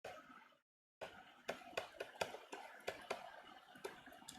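Faint, irregular clicks and taps of a pen writing, about two or three a second, with a brief dead-silent gap about half a second in.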